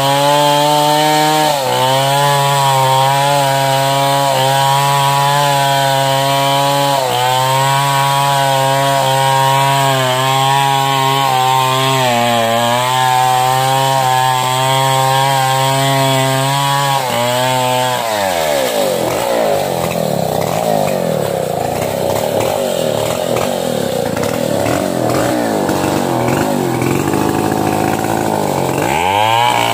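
Large long-bar chainsaw cutting into the trunk of a mindi tree at full throttle, its pitch dipping briefly now and then as the bar bites. About 18 seconds in the revs fall away and the engine runs low and uneven, then it revs back up near the end as cutting resumes.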